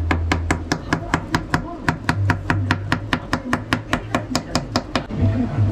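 Kitchen knife chopping a banana into slices on a plastic cutting board: quick, even knife taps, about five a second, which stop shortly before the end.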